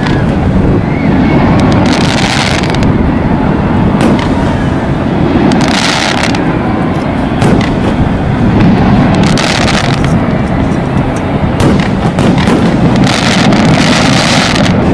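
Fireworks display: bursts with crackling about every three to four seconds over a constant loud rumble.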